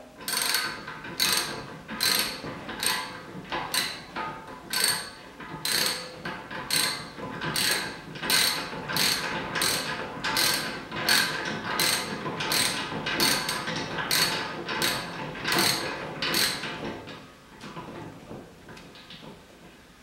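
Socket ratchet wrench clicking steadily, about two clicks a second, as it tightens the forcing bolt of a fan blade hub puller against a condenser fan motor's shaft, drawing the blade up off the shaft. The clicking stops about three-quarters of the way through.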